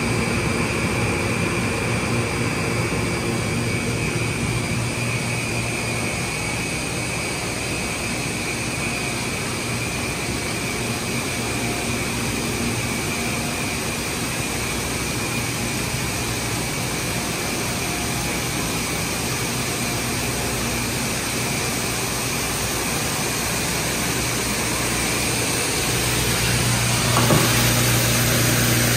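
GEORDING GD-115TS plastic recycling and pelletizing line running: a steady machine drone with a constant low hum and a high whine from its motors. Near the end it grows slightly louder, with a single click.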